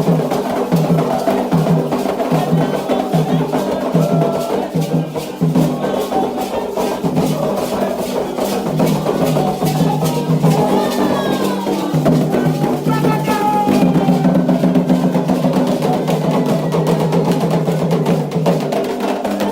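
Candomblé ritual drumming: atabaque drums beaten in a fast, continuous rhythm, with sharp wood-block-like clicks. Voices come in briefly over the drums around the middle.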